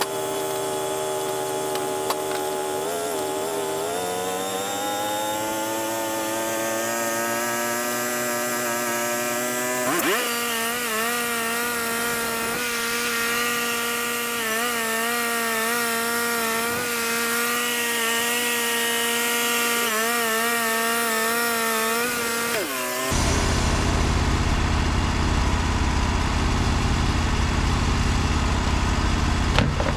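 Portable band sawmill running and sawing through a cedar log: a steady, pitched machine whine that rises over the first ten seconds or so and then holds. About 23 seconds in it changes abruptly to a louder, rougher, deeper engine noise.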